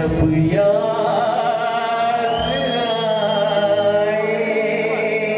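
Live band playing an evergreen song: a singer holds one long, slightly wavering note over the band's accompaniment.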